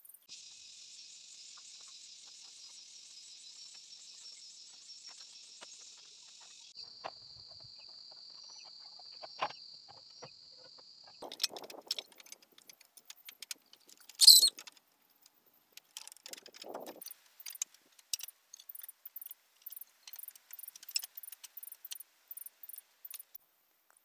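Insects buzzing steadily, changing to one high steady tone about seven seconds in. Then clinking and knocking of red clay roof tiles being handled and laid on bamboo battens, with one sharp clatter midway.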